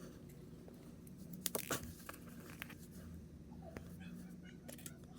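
Faint, scattered clicks and taps of small plastic action-figure parts being handled and snapped together.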